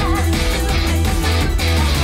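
Telecaster-style electric guitar played with a pick over a full band track with heavy bass and a steady beat.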